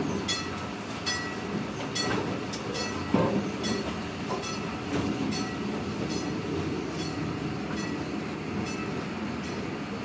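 Narrow-gauge zoo train running, heard from inside an open passenger car: a steady rumble of wheels on track, with the wheels clicking over rail joints about once every 0.8 seconds. A single louder thump comes about three seconds in.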